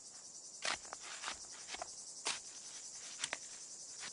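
A hand tool striking and digging into earth, about five sharp knocks at irregular intervals, over a steady high chirring of insects.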